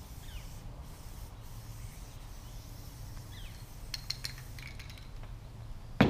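A few light clicks about four seconds in, then a single sharp knock near the end as an aerosol can is set down on a plywood floor.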